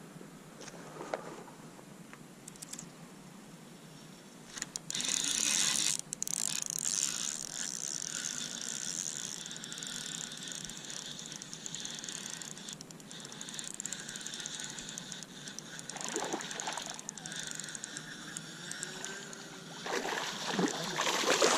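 A fishing reel ratcheting and whirring as a hooked smallmouth bass is played and reeled in. The reel starts abruptly about five seconds in, is loudest at first, and keeps going, and the fish splashes at the surface near the end.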